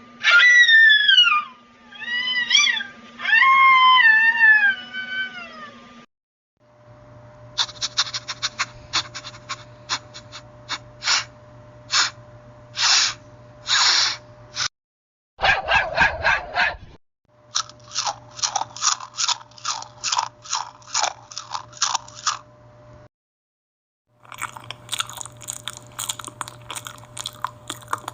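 A string of separate sound-effect clips: first about six seconds of falling, whining meow-like cries, then several runs of crisp crunching clicks, like chewing, broken by short silences.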